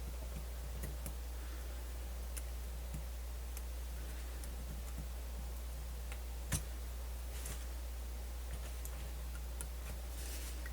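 Scattered small clicks and ticks of a MiniDisc player's plastic and metal parts being handled and fitted back together, with one louder click about six and a half seconds in, over a steady low hum.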